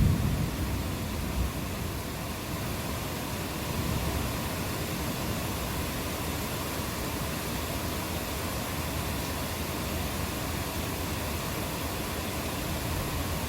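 Steady rain falling in a thunderstorm, an even hiss. A low thunder rumble dies away in the first second or two.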